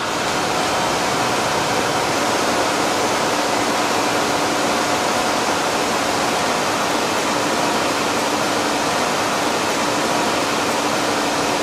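Steady rushing noise of an eel-grilling conveyor line, from its gas burners and the exhaust hoods above it, with a faint steady hum underneath.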